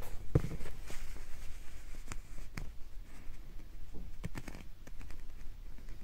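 Handling noise: scattered soft rustles and clicks, with a low thump about half a second in.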